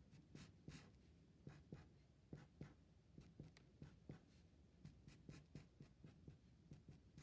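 Marker drawing lines on a paper worksheet: a run of faint, short scratching strokes, a few a second.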